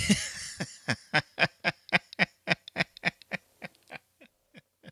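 A man laughing: a long run of short, evenly spaced "ha"s, about four a second, fading away toward the end.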